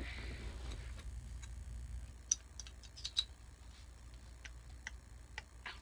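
Scattered small metallic clicks and taps of pliers working a mini stapler's bent metal piece, prying it up from under a bar. The two sharpest clicks come about two and three seconds in.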